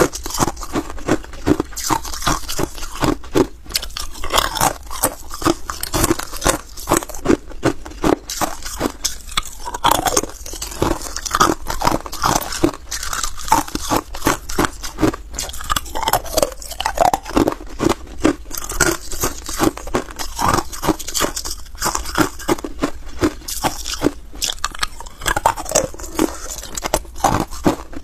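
Hard ice cubes being bitten and chewed close to a clip-on microphone: a rapid, continuous run of sharp, crisp crunches, several a second.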